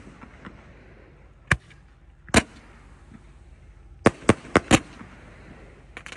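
Consumer firework cake firing, its shots bursting overhead with sharp bangs: two single bangs, then a quick run of four near the end.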